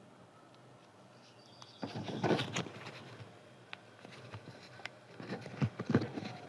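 Paper crinkling and rustling as it is handled and cut, in two bursts: one about two seconds in and a second near the end, with scattered light clicks between.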